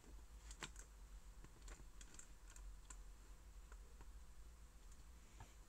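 Faint, irregular small clicks and taps from hands handling things on a tabletop, over a low steady hum.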